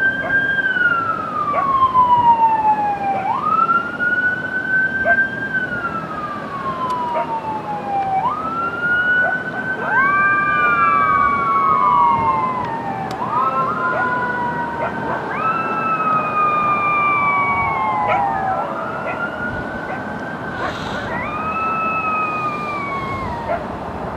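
Emergency vehicle sirens wailing. Each wail rises quickly, holds, then falls slowly, about every four to five seconds. From about ten seconds in, a second siren wails out of step with the first, and both grow somewhat fainter toward the end.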